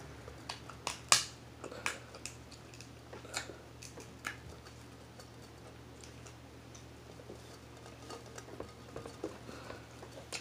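Scattered sharp clicks and cracks of kitchen scissors cutting crab shell, mixed with small eating sounds; the loudest crack comes about a second in, and the clicks thin out and grow fainter later.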